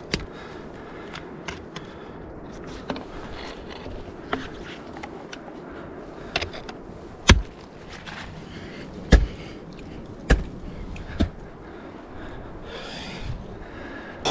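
Ice axe picks swung into waterfall ice: sharp single strikes at irregular intervals of about one to two seconds, the loudest two about halfway through.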